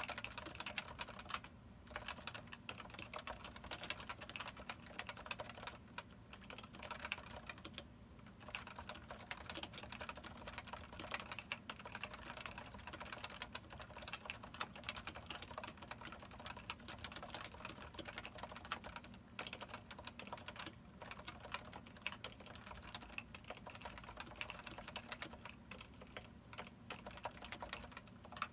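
Typing on a Topre Type Heaven 104-key keyboard: 45 g electrostatic capacitive rubber-dome switches with unlubricated sliders, ABS laser-printed keycaps and Krytox 205-lubed stabilizers. A dense, steady run of keystrokes, with short pauses about 2, 8 and 19 seconds in.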